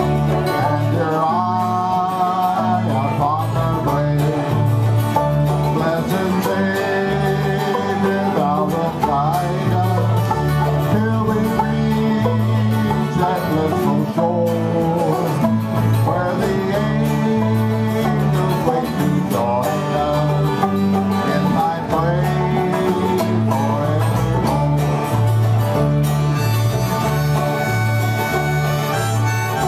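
Bluegrass-style jam band playing a country song on acoustic guitar, banjo and electric bass, with the bass stepping back and forth between two notes. A harmonica joins near the end.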